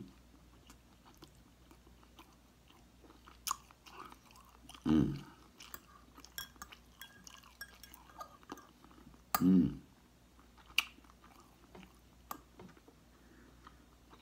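A man chewing food with wet mouth sounds and scattered sharp clicks. Two short hummed sounds come about five and nine and a half seconds in.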